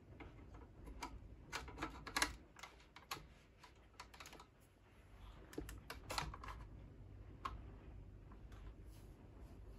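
Irregular light clicks and scrapes of a grip accessory being fitted and slid onto an airsoft M4's handguard rail, coming in short clusters.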